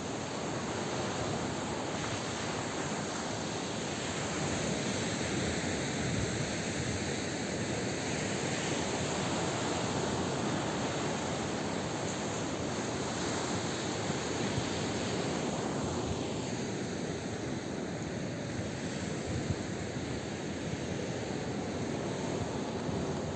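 Surf from a choppy sea breaking on a rocky shore, heard as a steady rush that swells and eases slowly, with wind mixed in.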